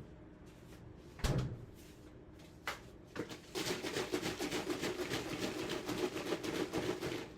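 A knock and a click of handling, then almond milk pouring from a carton into a blender jar for about four seconds, a continuous rapid gurgling that stops near the end.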